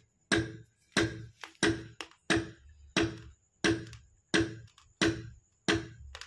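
A steady percussive beat of sharp, drum-like knocks, about three every two seconds, nine in all, each dying away quickly.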